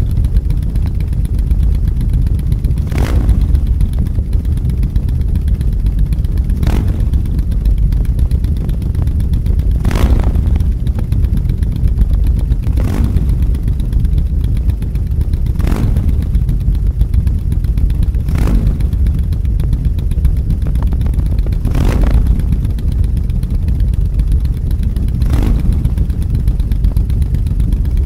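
Low, steady motorcycle engine rumble, with a short sharp burst about every three seconds.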